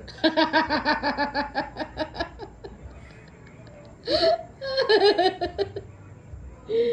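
A person laughing: a quick run of laughs, about six a second, for about two and a half seconds, then two shorter bursts of laughter around four and five seconds in.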